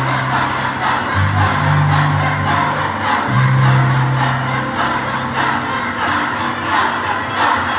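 Choir singing loudly, many voices at once, over low held bass notes that move to a new pitch about a second in and again about three seconds in.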